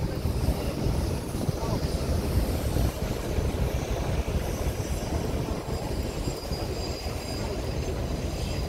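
Tourist road train riding over a cobblestone street: steady rumble and fine rattling of the carriage and tyres on the cobbles, with the towing vehicle's engine running.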